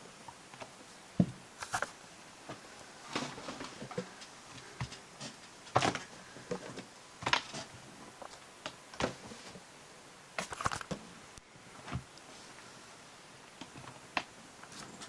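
Lynx hybrid kittens tussling and scrambling on a fabric bedspread: irregular soft rustles, taps and thumps, with a few sharper knocks scattered through.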